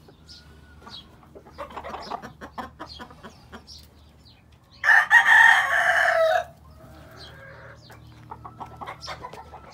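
A gamefowl rooster crows once, loudly, for about a second and a half, midway through. Before the crow comes a quick run of clicks. Short clucks and faint high chirps from other birds in the pens sound throughout, with a fainter second crow or call after the loud one.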